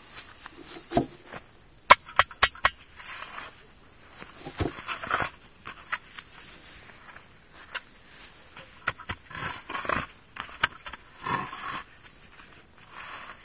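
Steel spiral hand auger being twisted into grassy soil: repeated gritty scraping and crunching as the blade cuts through earth and roots, in irregular bursts with each turn. A few sharp clicks come about two seconds in.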